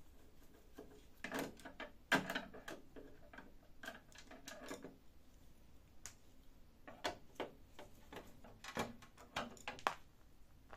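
Screwdriver work on a copier's plastic side cover: irregular clusters of small clicks and knocks as screws are turned out and handled, with the sharpest knocks near the start and again near the end.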